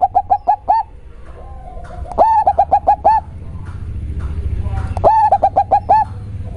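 A local zebra dove (perkutut) singing in a very deep, bassy voice. One cooing phrase ends just as it starts, and two more follow about three seconds apart. Each phrase is a rising coo and then a quick run of four or five short notes.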